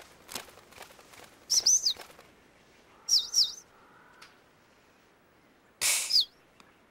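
Cartoon bird chirps: short, high whistled notes that dip in pitch. They come in a pair about a second and a half in, another pair about three seconds in, and a single chirp near the end with a brief rushing burst. Faint soft clicks sound in the first two seconds.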